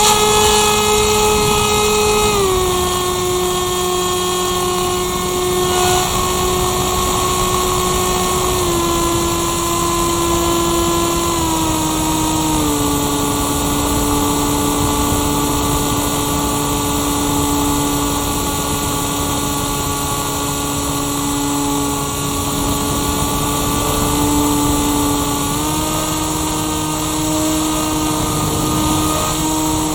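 Firstar 2000 motor glider's motor and propeller running steadily in flight, heard from the on-board camera over a rush of air. The whine steps down in pitch three times as the throttle is eased, then steps back up near the end.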